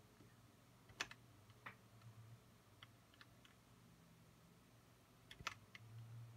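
Faint scattered computer-keyboard clicks, the two loudest about a second in and about five and a half seconds in, over a faint low hum of room tone; the keys are pressed to advance the slides.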